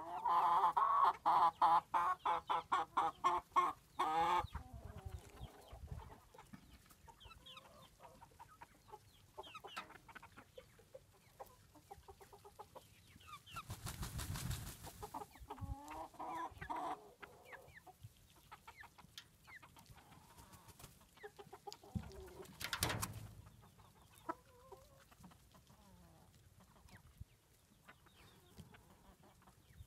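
Silkie chickens clucking and cackling: a loud, fast run of cackles at about four a second for the first four seconds, then softer scattered clucks. A brief rush of noise comes about halfway through.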